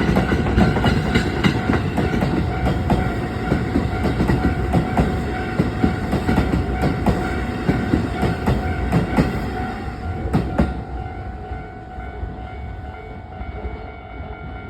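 An electric commuter train passing over a level crossing, its wheels clacking over the rail joints, while the crossing's electronic warning alarm rings. About ten seconds in the train noise ends and the alarm tone continues.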